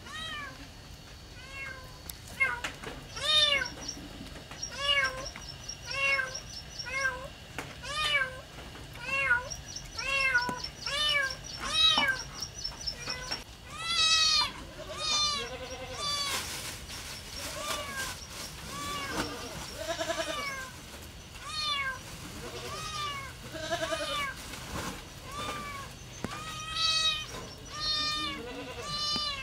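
Kittens meowing over and over, calls about a second apart and sometimes overlapping, begging for food as dried fish is held out to them.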